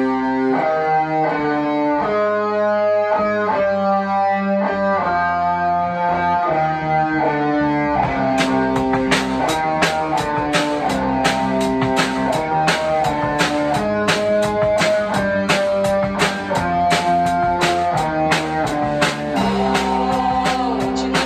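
Rock band playing a song intro live: electric guitar and bass play a repeating riff alone, then the drum kit comes in about eight seconds in with a steady cymbal-and-drum beat.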